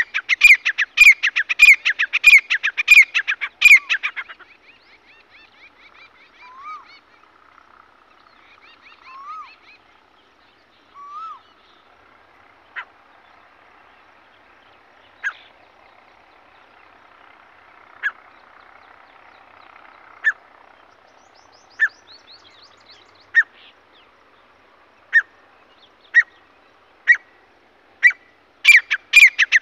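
Grey francolin calling: a loud, fast run of shrill repeated notes for the first four seconds, then after a lull with a few faint chirps, single notes a second or two apart that come quicker and quicker until the loud run starts again near the end. This is the francolin's song building up from single notes into its full repeated call, used here as a hunting call.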